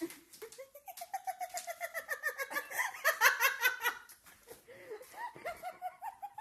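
A person laughing hard in quick, high-pitched bursts of giggling that climb in pitch at first, ease off briefly past the middle, then pick up again.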